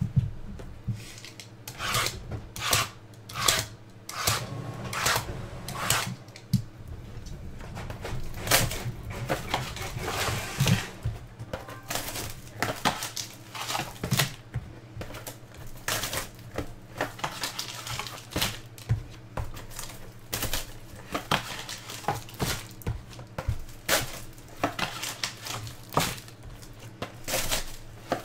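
Small cardboard trading-card boxes being shuffled, knocked together and opened by hand, with foil wrappers crinkling: an irregular string of sharp taps, knocks and rustles, several a second, over a steady low hum.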